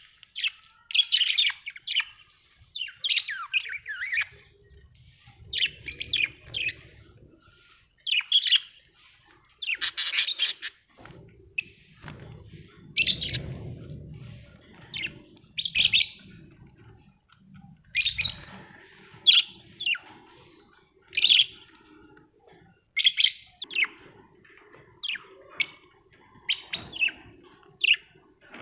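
Budgerigars chirping in short bursts of warbled chirps and squawks every second or two.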